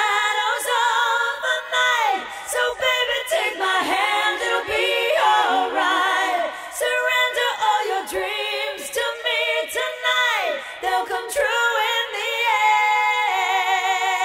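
Background music: a woman singing unaccompanied, long held notes with a strong wavering vibrato and no instruments.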